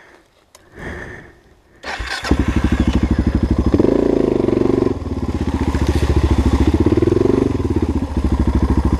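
Dual-sport motorcycle engine starting about two seconds in, then running with a steady pulsing beat as the throttle is opened twice, rising and falling in pitch while the bike rides through mud.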